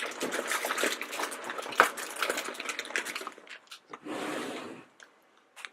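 Plastic blind bags crinkling and rustling as a hand rummages through a bin full of them, with dense crackling for about three seconds. A shorter, softer rustle follows about four seconds in, then it goes quiet.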